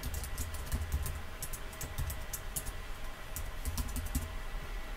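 Typing on a computer keyboard: quick runs of keystrokes broken by short pauses, over a steady low hum.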